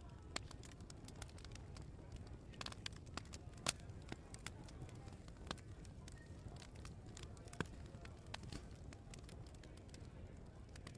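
Open wood fire crackling, with sharp pops at irregular intervals over a low steady rumble; the loudest pop comes a little under four seconds in.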